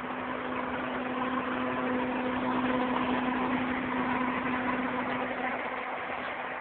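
Diesel engine of a steel-drum road roller running steadily with an even droning tone. It grows louder toward the middle and eases off a little near the end.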